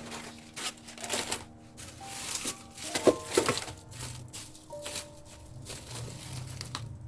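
Irregular crinkling and rustling handling noises, louder about a second in and again around three seconds, over soft background music.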